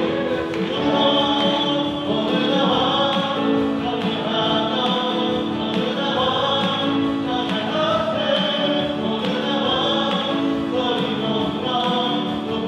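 A live praise team of several singers singing a worship song together, backed by a band with acoustic guitar and keyboards.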